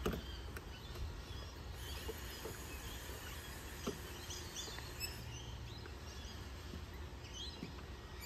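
Birds chirping in outdoor ambience, with a few faint clicks and taps, the clearest right at the start and about four seconds in.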